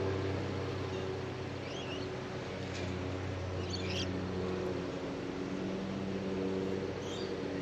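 Australian magpie singing softly: a few short, high warbling notes about two seconds in, around four seconds, and again near the end, over a steady low hum.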